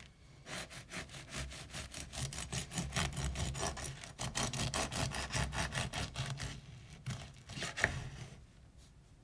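Bread knife sawing back and forth through the crust and crumb of a homemade sourdough loaf: a run of quick rasping strokes that fades out after about six and a half seconds. A single sharp knock comes about eight seconds in.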